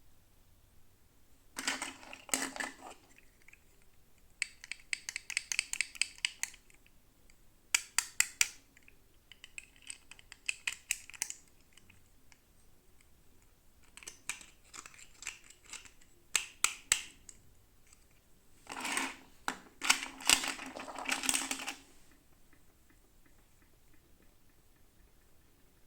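Plastic toy packaging being handled and opened: several spells of rapid clicking and crackling, each a second or two long, with quiet pauses between.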